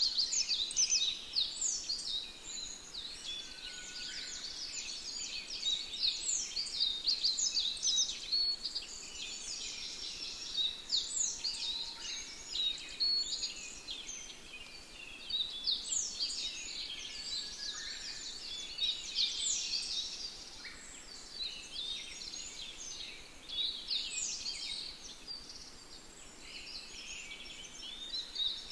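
A dense chorus of many small birds chirping, with quick overlapping downward-sweeping calls throughout, over a steady outdoor hiss.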